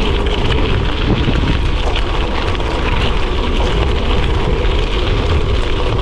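Gravel bike rolling over a gravel road, its tyres crunching steadily, with wind rumbling on the microphone.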